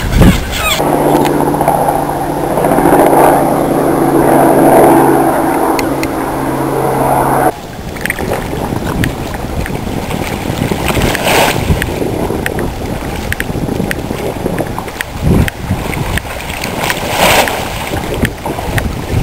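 A steady low mechanical drone with a constant hum, which stops abruptly about seven seconds in. Then gusty wind buffets the microphone, swelling twice.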